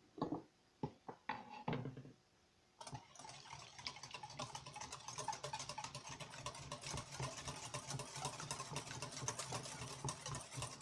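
Wire whisk beating an egg into melted butter and sugar in a stainless steel bowl: a fast, steady clatter of the wires against the metal. A few separate knocks come first, and the whisking starts about three seconds in.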